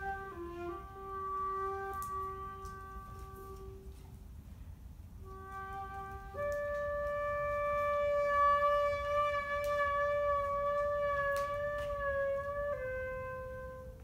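Shinobue, a Japanese bamboo transverse flute, playing a slow melody of long held notes. It pauses briefly about four seconds in, then holds a higher note from about six seconds in until near the end.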